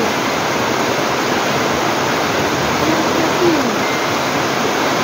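Heavy typhoon rain pouring steadily on trees and a roof, a dense, even hiss.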